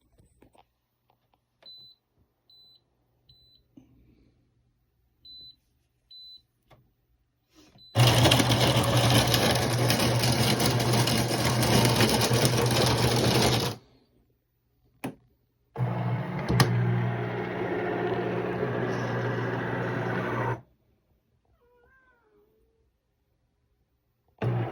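De'Longhi TrueBrew coffee maker: a string of short, high electronic beeps, then the machine running loud with a strong hum for about six seconds, stopping, and running again for about five seconds.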